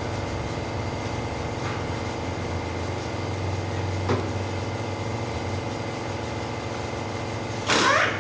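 Wheel loader's diesel engine idling steadily. There is a small click about four seconds in, and a short loud sound near the end whose pitch glides up and down.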